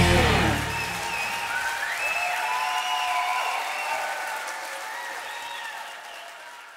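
A theatre audience applauding right after a live rock song ends, as the band's last chord cuts off about half a second in. The applause fades away gradually toward the end.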